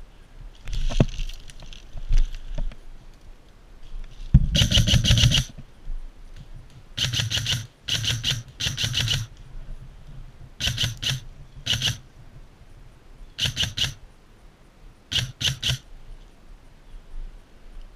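Airsoft gun firing in short bursts of rapid full-auto fire, about eight bursts, the first and longest lasting about a second.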